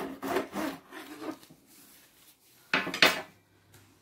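Kitchen knife sawing back and forth through a rolled tortilla chicken wrap onto a cutting board: a run of short rasping strokes, then two louder scraping strokes near the end as the blade goes through.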